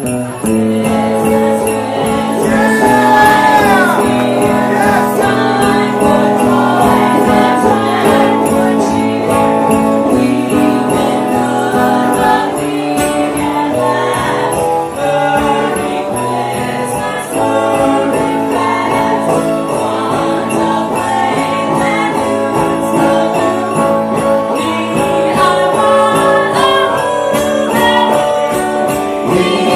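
Live band playing a Christmas song with jingle bells shaking throughout, sustained melody notes over a steady accompaniment.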